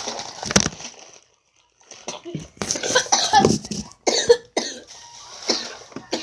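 A girl coughing several times from a cold, in separate bursts with short pauses between.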